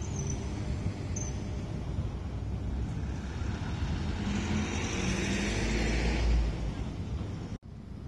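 Road traffic, with a box truck passing close by: the rumble and hiss swell to their loudest about five to six seconds in, then fade. The sound drops out for an instant near the end.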